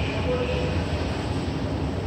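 Subway station ambience: a steady low mechanical rumble with no distinct events.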